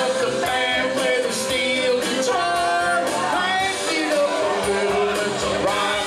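A man singing karaoke into a microphone over a backing track, with long held notes that slide in pitch.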